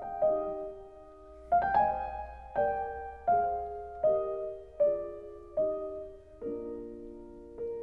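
Background music: a slow, gentle piano melody, single notes struck about once a second, each ringing and fading, with a fuller chord about a second and a half in.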